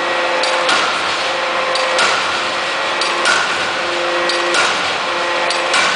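3-ton double-column forging hammer striking repeatedly, about five blows roughly one every second and a quarter. Each heavy blow is preceded by a lighter click, and a steady hum from the machine comes and goes between strikes.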